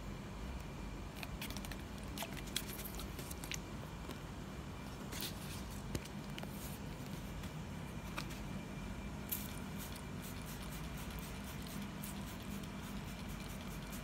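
Steady low background hum with scattered light clicks and taps, the small handling noises of a hand-held bottle and phone.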